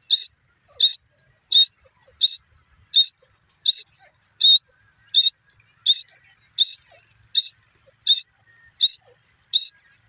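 Grey francolin calling: a loud, high note repeated at an even pace, about fourteen times, roughly one every 0.7 seconds.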